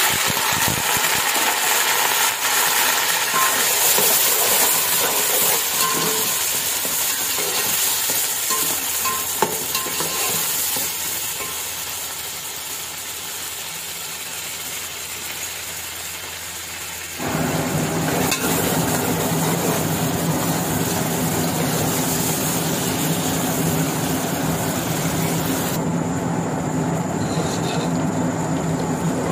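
Sliced onions hitting hot oil in a large metal pot with a sudden loud sizzle, then frying with a steady sizzle as they are stirred with a metal slotted spoon. The sizzle eases in the middle and grows louder again about two-thirds of the way through.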